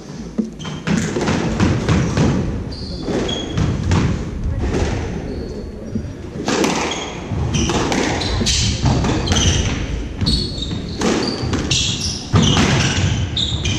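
Squash rally: the ball cracked by rackets and knocking off the court walls again and again, with short high squeaks from shoes on the wooden floor.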